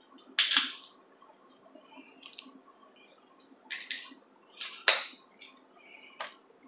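Snow crab shell cracking and snapping as it is broken apart by hand: a string of about six sharp cracks, the loudest about five seconds in.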